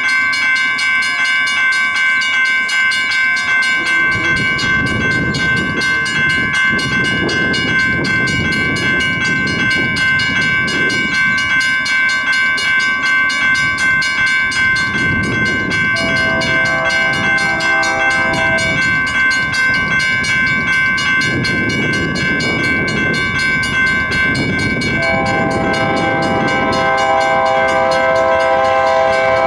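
A freight locomotive's multi-chime air horn sounds twice as the train approaches in the distance: a shorter blast about halfway through and a longer one starting near the end. Underneath are a low rumble and a steady high ringing tone.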